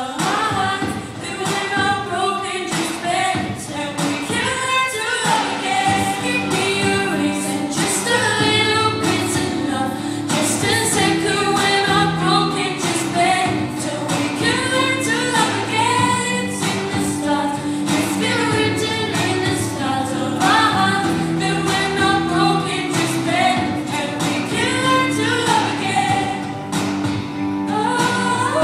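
Solo singer singing a pop song into a microphone, over a steady backing of held chords.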